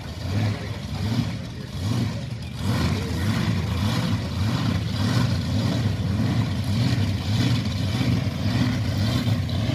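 Monster truck engine running with a deep, uneven rumble as the truck drives slowly away.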